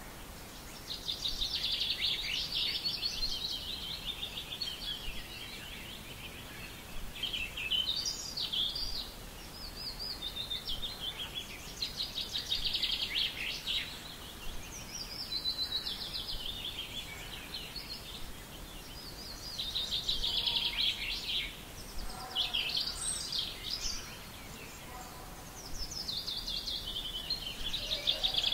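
A songbird singing about eight fast, twittering phrases, each a second or two long, with short pauses between them, over faint steady background noise.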